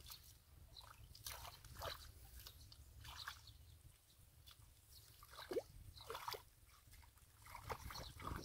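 Hands and bare feet squelching and sloshing in shallow muddy water while digging through the mud, with irregular small splashes and drips, the loudest about five and a half seconds in.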